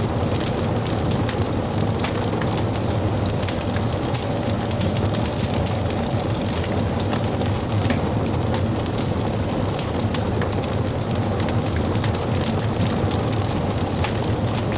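Wood fire burning: a steady low rush of flames with many small crackles and pops from the burning wood throughout.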